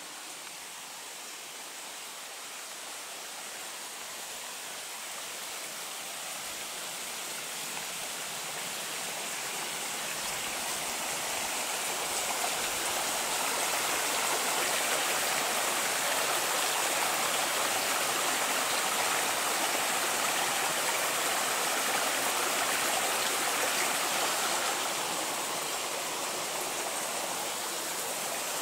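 Small brook running over rocks: a steady rush of water that grows louder through the first half as it comes closer, then eases slightly near the end.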